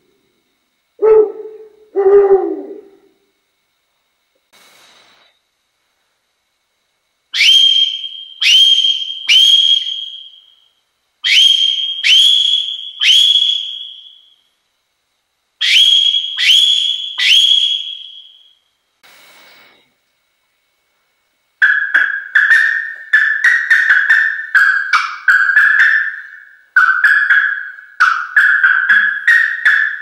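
Hand-made wooden bird calls blown by mouth. First come two low hoots from a tube-shaped long-eared owl call, then three groups of three sharp, high whistled notes from a small wooden whistle. Near the end comes a long, fast run of short warbled notes at a lower pitch.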